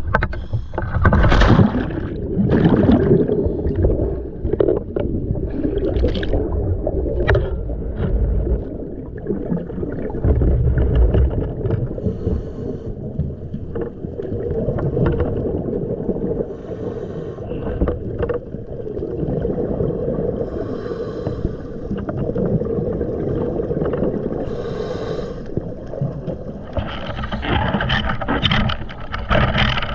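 Muffled water noise and low rumble heard through an underwater camera housing, with scattered knocks and bursts of bubbling. A louder spell of bubbling comes near the end.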